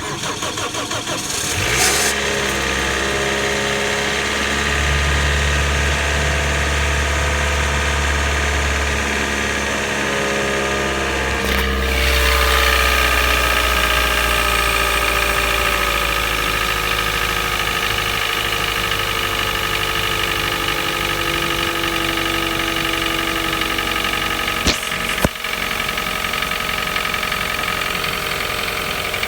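Toyota 1NZ-FE four-cylinder engine cranking and catching from cold about two seconds in, then running at a fast cold idle that slowly settles lower. The owner says the knock shows up on every cold start and fades after a few minutes. A few sharp clicks come near the middle and again later on.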